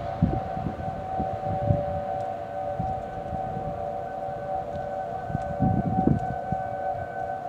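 Outdoor warning siren sounding a steady wail, several close tones held at one pitch with no rise or fall, with irregular low rumbles underneath.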